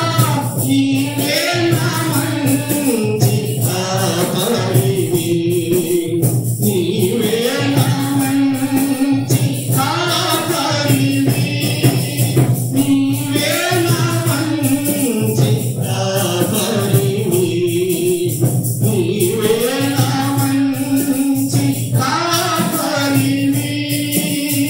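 Telugu Christian hymn, voices singing in phrases over a steady beat of tambourine and a sustained low drone.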